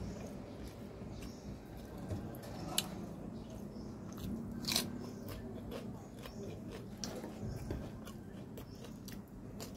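A person eating, chewing close to the microphone with wet mouth clicks throughout. Two sharper bites stand out, one near three seconds in and one near five seconds in.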